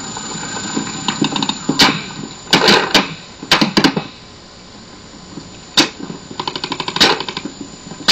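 Paintball markers firing in quick bursts of sharp shots, with a rapid string of about a dozen shots a second near the end.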